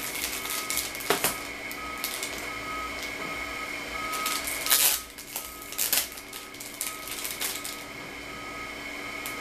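Crinkling of a thin clear plastic packaging bag and scattered handling clicks, with the loudest rustle nearly five seconds in. A faint steady high whine and a faint tone pulsing about twice a second run underneath.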